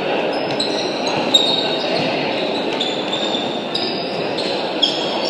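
Basketball game on a sports hall court: players' shoes squeaking on the floor in many short high squeaks, over a steady din of players and spectators, with a sharp ball bounce or two.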